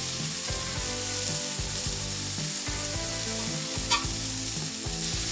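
Beef burger patties sizzling on a hot flat griddle plate: a steady frying hiss, with one sharp click about four seconds in.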